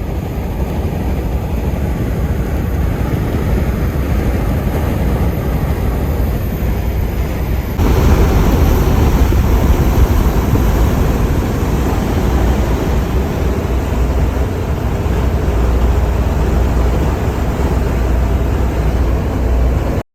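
Truck driving along a highway: a steady noise of road and wind, heaviest in the low rumble, which gets abruptly louder about eight seconds in.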